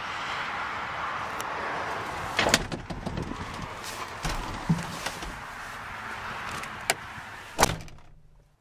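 Knocks and clicks of handling inside a 1994 Ford F-150's cab. Near the end, a cab door thumps shut and the steady outside hiss drops away at once.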